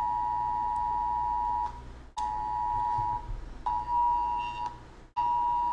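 Electronic beeping: a steady two-pitch tone repeated four times, each beep about one to one and a half seconds long with short gaps between.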